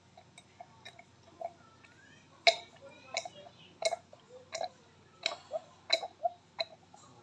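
Baby gulping and swallowing while drinking from an open plastic bottle rim. The short gulps come about every 0.7 seconds from about a third of the way in, with fainter sips before that.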